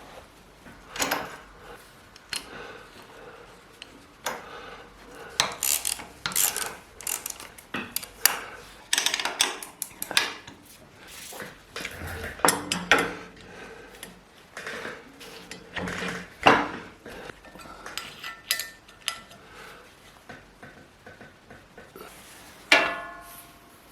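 Irregular clinks, knocks and clatter of hand tools and steel parts being handled while the pillow block bearing's mounting on a homebuilt bandsaw sawmill is refitted. Near the end, one sharp metal strike rings on briefly.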